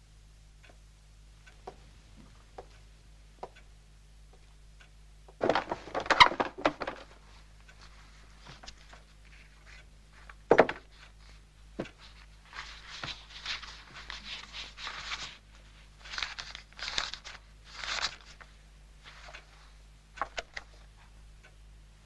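Sounds of things being handled in a small room: scattered light clicks, a burst of clattering about five and a half seconds in, and a single sharp knock near the middle. After that come several seconds of dry scratching and rustling, with a few more clicks near the end.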